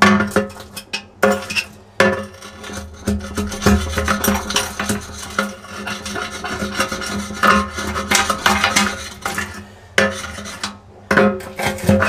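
Steel wood chisel scraping old silicone sealant off a glass aquarium bottom in many short, repeated strokes, blade grating on the glass, with background music underneath.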